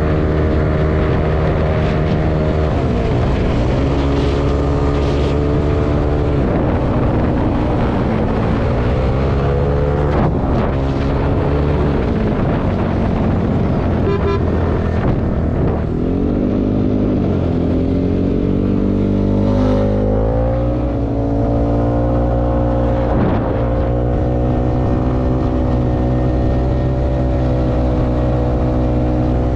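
Yamaha Aerox scooter's single-cylinder engine, enlarged to 195cc, running steadily while riding. Its pitch falls and rises again several times as the throttle is eased and reopened.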